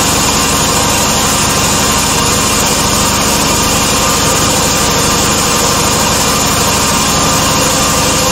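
Motor-driven alternator set running steadily under test, a constant machine drone with a fast low flutter.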